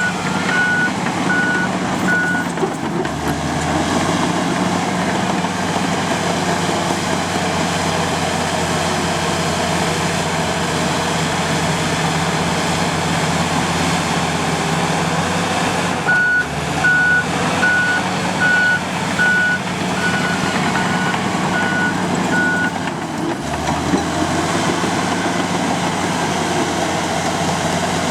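Komatsu D85 bulldozer's diesel engine running steadily, with its reversing alarm beeping at the start and again for several seconds about halfway through, signalling that the dozer is backing up. The engine note shifts lower a few seconds in and again near the end.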